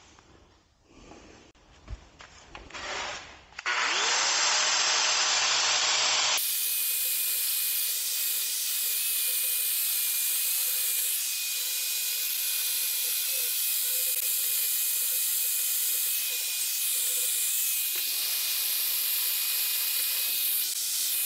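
Angle grinder spinning up with a rising whine about four seconds in. It then grinds steadily on the edge of a steel axle truss plate, trimming it down to fit, with a thin high whine over the grinding noise.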